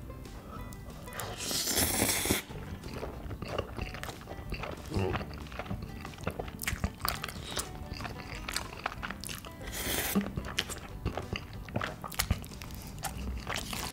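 Instant spicy stir-fried noodles being slurped up from chopsticks, twice (near the start and again about ten seconds in), with wet chewing and mouth clicks in between, over background music.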